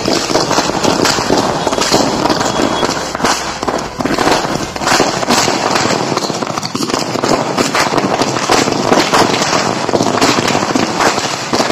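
Firecrackers going off on the ground in a rapid, continuous string of loud bangs and crackles.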